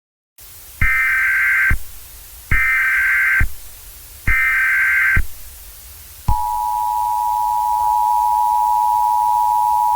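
Emergency Alert System tones: three short bursts of SAME header data, each just under a second, followed about six seconds in by the steady two-tone attention signal, over a faint hiss. The sequence signals the start of an emergency alert broadcast.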